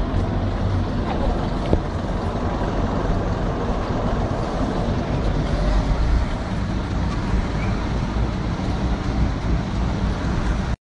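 Steady traffic noise with a strong low rumble, with no single event standing out; it cuts off suddenly near the end.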